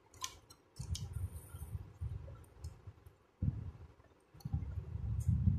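Janome Secio 8200 sewing machine stitching a wide zigzag for cutwork in free-hand embroidery. It runs in several short bursts with brief pauses between them, and a few sharp clicks come in the first second or so.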